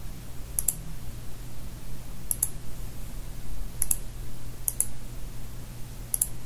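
Five sharp clicks of a computer's pointer button, two of them quick doubles, spaced a second or more apart, over a steady low electrical hum.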